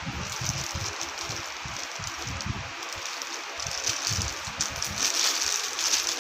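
Plastic bag crinkling and rustling as a spinning reel in its wrapping is lifted out of a cardboard box and unwrapped, the crinkling loudest in the second half. Soft knocks from handling the box in the first few seconds.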